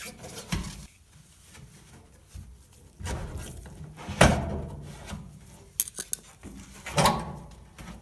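A dryer's lower kick panel knocking and clicking as a 5-in-1 tool pushes in its spring clips and the panel is pulled forward off them: a handful of separate knocks, the loudest about four seconds in.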